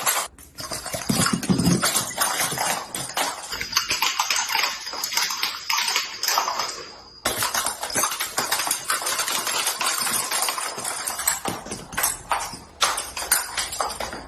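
Joint and back cracking during chiropractic adjustments: a rapid run of sharp pops and clicks. It breaks off briefly about half a second in and again near the middle.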